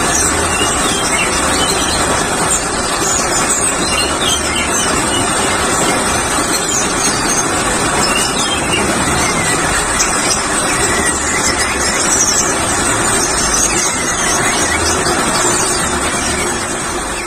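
An orange-headed thrush singing amid a dense, continuous chorus of many caged songbirds, over steady loud background noise.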